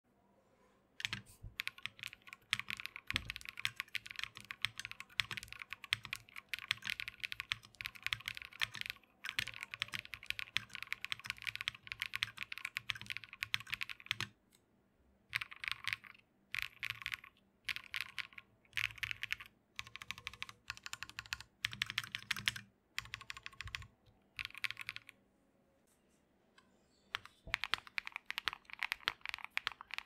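Typing on a stock Monsgeek M1 mechanical keyboard with Tecsee Carrot switches: long runs of quick keystrokes, then shorter bursts with gaps in the middle. After a pause near the end, typing resumes with a deeper sound.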